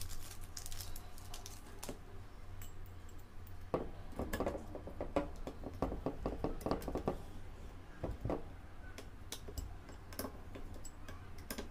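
Hand screwdriver turning small screws into a quadcopter frame: scattered light clicks, taps and scrapes of the tool and screws, busiest from about four to eight seconds in.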